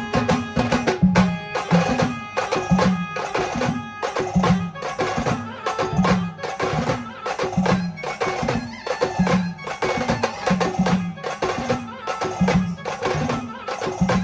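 A live band playing an instrumental passage of Marathi folk-style music: a regular drum beat under a sustained melody line.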